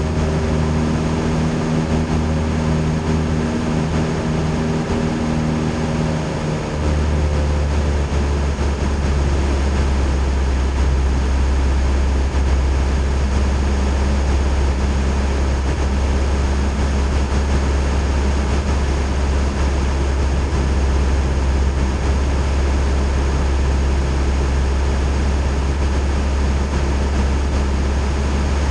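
Single-engine Cessna Skyhawk's piston engine and propeller droning steadily, heard inside the cabin. About a quarter of the way in, the engine note shifts: the higher tones fade and the low drone gets stronger and holds.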